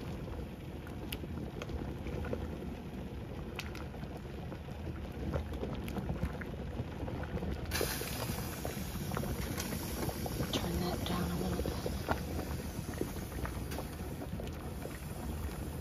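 Large stainless pot of heavily salted water at a rolling boil with pasta cooking in it: steady bubbling with many small pops. A brighter hiss comes in about halfway through.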